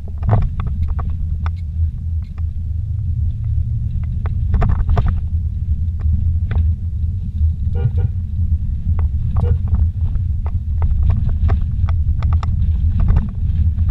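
Vehicle driving slowly over a rough dirt track, heard from inside the cabin: a steady low rumble of engine and tyres, with frequent short knocks and jolts from the bumpy road.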